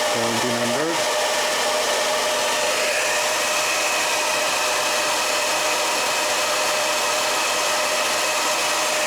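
Agaro HD 1150 Turbo Pro hair dryer with an AC motor running steadily, blowing hard; a high whine comes in about three seconds in.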